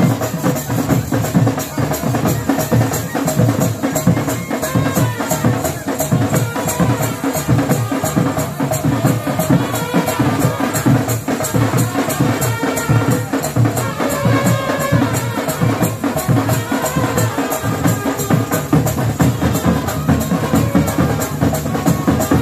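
A village band plays dance music, with loud drums keeping a steady, driving beat and a melody line over it.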